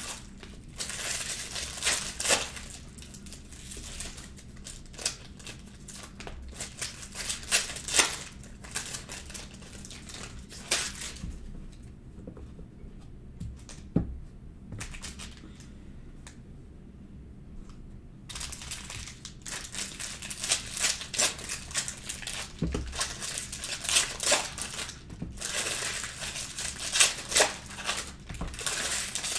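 Foil trading-card packs crinkling and tearing as they are ripped open. In the middle there is a quieter lull in which the cards are handled, with two dull taps on the table.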